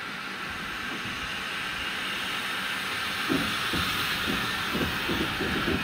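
Steam locomotive with a steady hiss of steam, slowly growing louder. From about three seconds in, irregular low thumps of wind buffet the microphone.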